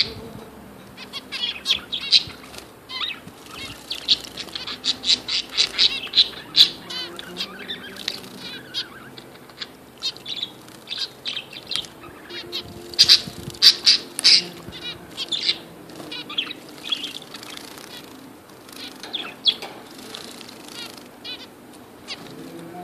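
Zebra finches calling: many short, sharp chirps in quick runs, busiest over the first several seconds and again around the middle.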